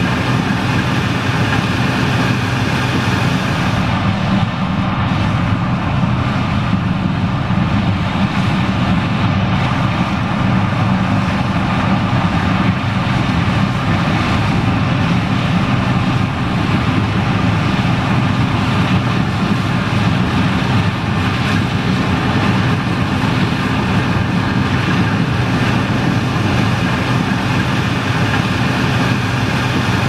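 John Deere 9560STS combine running under load as it harvests corn and unloads grain, together with the tractor pulling the grain cart alongside. The result is a steady mechanical drone with several held tones that stays even throughout.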